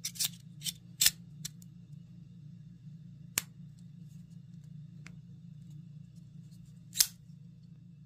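Sharp metallic clicks and snaps from a Rike RK Shadow folding knife as its metal handle parts and blade are moved and locked into place: a quick run of clicks in the first second and a half, two single clicks a few seconds apart, and a loud snap near the end.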